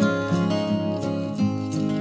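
Background music led by an acoustic guitar, plucked and strummed in a steady rhythm.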